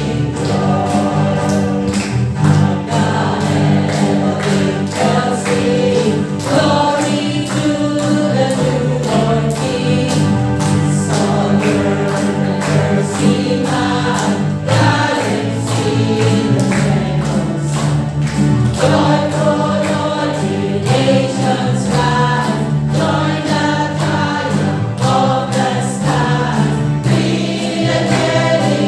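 A choir singing a carol over backing music with sustained chords and a steady beat.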